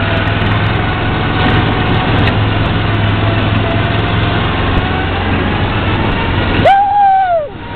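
Off-road buggy engine running steadily under way on a rough dirt track. Near the end, a brief loud shout rises over the engine.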